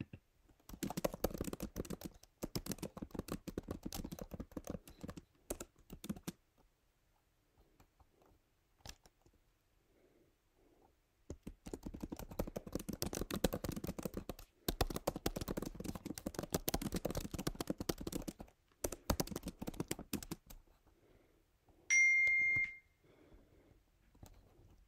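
Typing on a computer keyboard: two long runs of rapid key clicks with a pause between them. Near the end, a short, high electronic beep.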